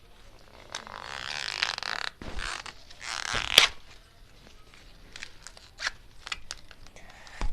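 Dry corn-plant leaves and husks rustling and tearing as an ear of corn is tugged at on the stalk, with a sharp crack about three and a half seconds in. Scattered small clicks and crackles follow.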